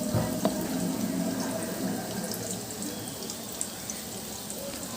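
Beef donuts sizzling as they deep-fry in hot oil in a kadai, a steady sizzle with fine crackles, and a couple of light knocks about half a second in.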